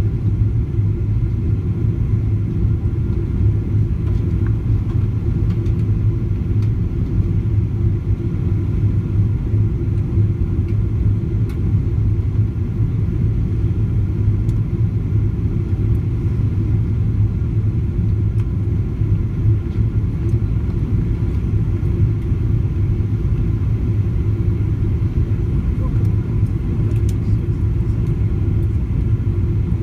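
Steady low rumble of a Boeing 777-200's cabin in flight on approach: engine and airflow noise heard from inside the cabin, even and unchanging, with a few faint clicks.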